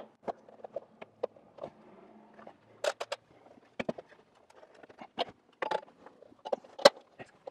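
Irregular light clicks and knocks of a metal rain gutter and strip miter being wiggled by hand so the miter slides into place at an inside corner, with one sharper knock near the end.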